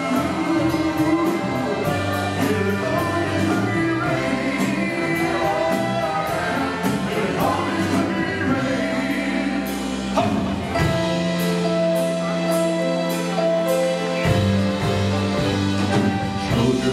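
A live band playing a country-pop ballad with singing. A long held chord starts about ten seconds in and lasts some three seconds.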